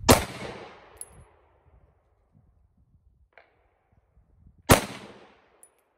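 Two pistol shots about four and a half seconds apart, each followed by a short decaying echo.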